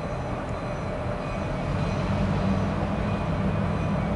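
Freight train on the nearby tracks, switching and shuffling cars: a steady low rumble that grows a little louder about two seconds in, with faint steady tones above it.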